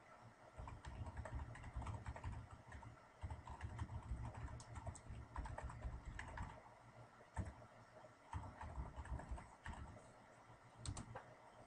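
Computer keyboard typing in quick runs of keystrokes with short pauses, then a couple of sharper clicks near the end.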